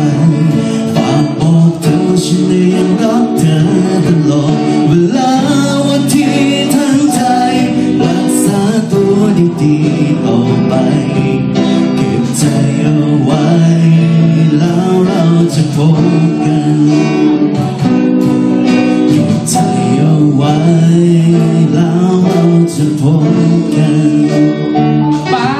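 Live band playing a song: a male vocalist singing into a microphone over guitar and drums.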